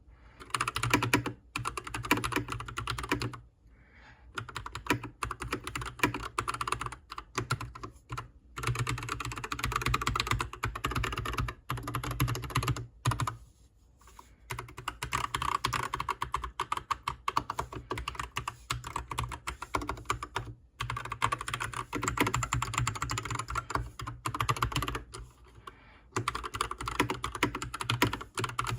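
Typing on a Keychron C2 Pro full-size mechanical keyboard with brown switches: fast runs of keystroke clacks, broken by short pauses every few seconds.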